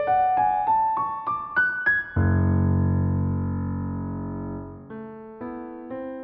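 Background music on a piano-like keyboard: a run of single notes climbing about three a second, then a held chord that slowly fades, then a quieter figure of repeated notes begins near the end.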